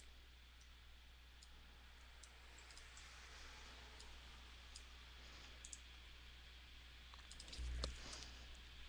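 Faint, scattered computer mouse clicks over a low steady hum, as points are placed and menu commands chosen while tracing paths in Photoshop.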